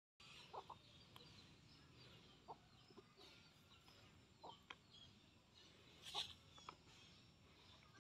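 Faint, scattered clucking of chickens over a quiet outdoor background: a few short calls, the loudest about six seconds in.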